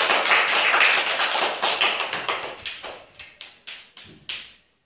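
A group of children clapping their hands together, dense at first and thinning out to a few separate claps that stop near the end.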